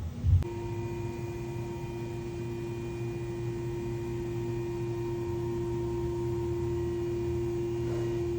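BMW N63 twin-turbo V8 idling smoothly with its misfire cured: a steady low hum with a steady whining tone over it that starts about half a second in and cuts off suddenly at the end.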